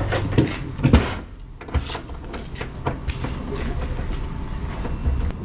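Irregular knocks and rattles as a lashing strap is pulled and thrown over a palletised load on a truck trailer, the loudest knock about a second in.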